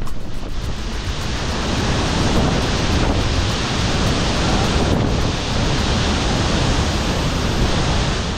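Steady, loud rush of a 25–30 m waterfall heard from the plunge pool at its foot.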